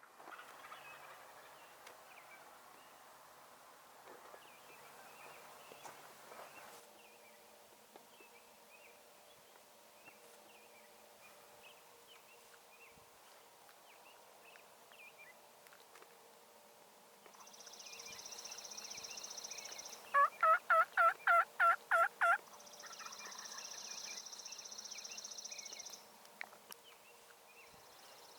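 Turkey calling: a loud run of about eight quick notes, about four a second, a little past two-thirds of the way through, over a quiet background of faint bird chirps.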